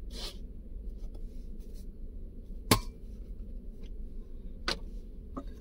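Two sharp clicks of kitchen utensils while rotis are being made, the first about halfway through and the louder, a fainter one about two seconds later, over a low steady hum.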